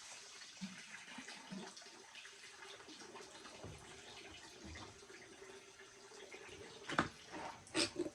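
Water running and trickling, with two sharp knocks near the end.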